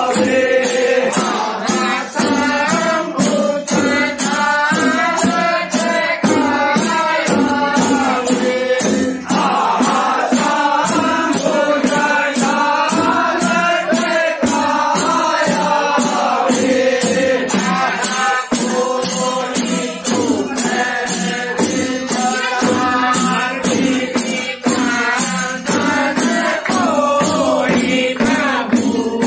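A group of men singing a Holi folk song together, with a steady beat of high percussion strokes about two a second.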